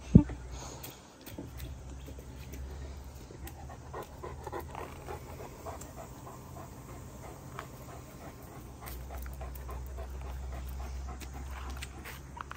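Great Dane panting, with scattered light crunches on dirt and leaves. A single sharp thump right at the start is the loudest sound.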